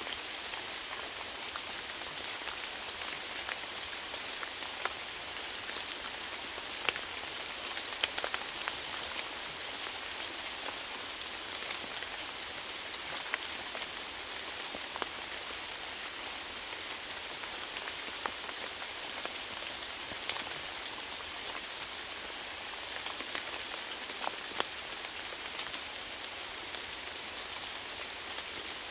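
Steady rainfall: an even hiss of falling rain with scattered louder individual drops hitting a surface.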